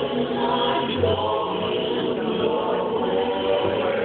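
Choir singing the slow, held chords of a wedding processional march.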